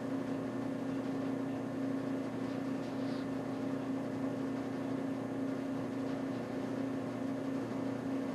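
Steady low machine hum, one constant tone over a faint even noise.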